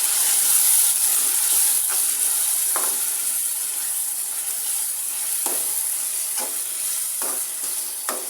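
Onion-tomato masala with spices and a splash of water sizzling steadily in hot oil in a kadai while it is fried down (bhunai). A spoon scrapes against the pan several times as it is stirred, more often in the second half.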